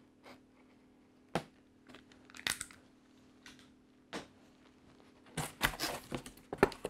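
A few small separate clicks and knocks, then, about five seconds in, the rustling and tearing of a cardboard toy box's end flap being pulled open.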